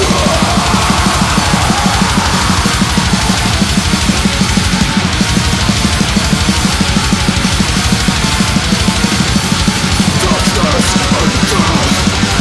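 Extreme metal track: rapid, relentless drumming under distorted electric guitars.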